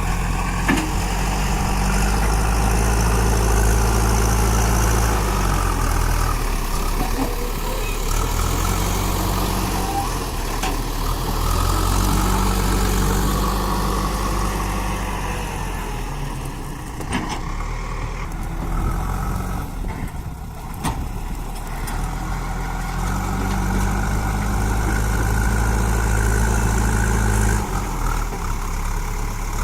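Diesel engine of a JCB backhoe loader running and working, its note rising and holding in several spells under load, with a few short knocks near the middle.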